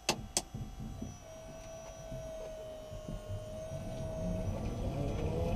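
Inside the cabin of an electric-converted BMW E46: two sharp clicks, then a steady electric whine from the drive system, with a low rumble building near the end as the car gets moving.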